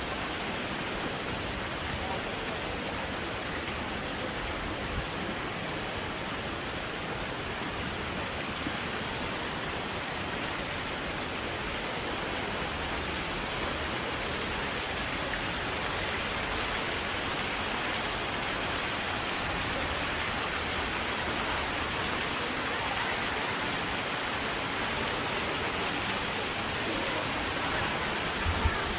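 Steady rushing and splashing of water from the marble fountain's jets falling into its basin, mixed with falling rain. A few short knocks near the end.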